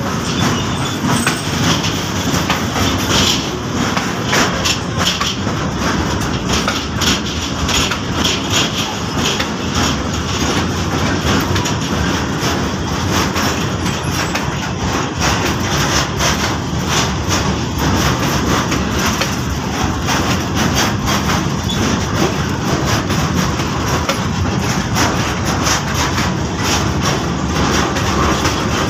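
Container freight train's loaded flat wagons rolling past, steel wheels clattering steadily over the rails.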